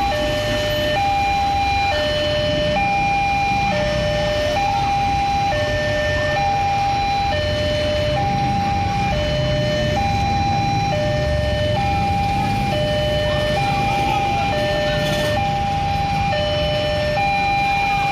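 Railway level-crossing warning alarm sounding its repeating two-tone high-low signal, each tone held just under a second, over the low rumble of a KRL electric commuter train passing.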